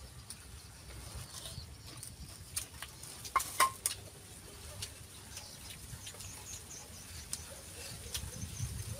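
Chopsticks and spoons tapping and clinking against stainless steel bowls and pots during a meal: scattered light clicks, with a louder run of metallic clinks about three and a half seconds in.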